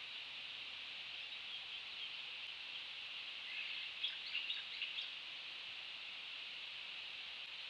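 A quick cluster of short, high bird chirps, about four to five seconds in, over a steady high hiss.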